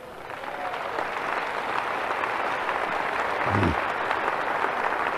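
A large audience applauding, building up over the first second and then holding steady. One voice calls out briefly midway through.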